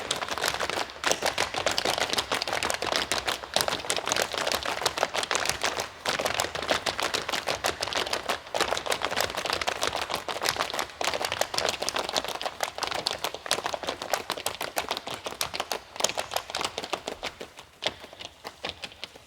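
Studio audience applauding, many hands clapping, thinning out and fading over the last few seconds.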